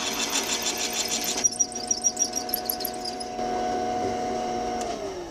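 Twist drill cutting into a cast iron hand wheel, with a fast regular ticking, until about a second and a half in, when the cut stops. The machine spindle runs on with a steady whine and some high squeaks, then its pitch falls near the end as it is switched off and winds down.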